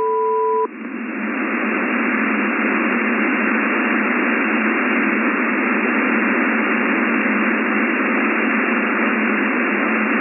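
Shortwave single-sideband radio hiss on an HF air-traffic control frequency between transmissions, swelling over the first two seconds and then steady. A steady two-note tone cuts off under a second in.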